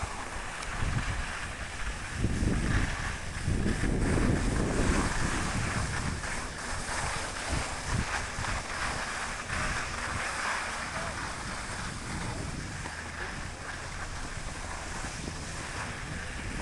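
Wind buffeting the microphone and skis hissing over tracked, packed snow during a downhill run. Strong low gusts in the first few seconds ease into a steadier hiss.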